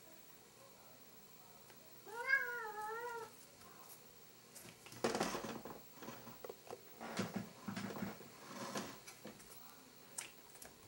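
Korat cat meowing once about two seconds in, a call of about a second whose pitch wavers up and down. Then comes a run of irregular scuffling and scraping noises as the cat climbs and pushes against the picture frames and speaker cabinet on the shelf.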